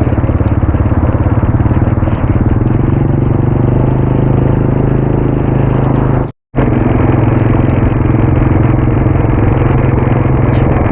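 Motorcycle engine running steadily at a constant speed, with a rapid low firing pulse; the sound cuts out completely for a moment about six seconds in.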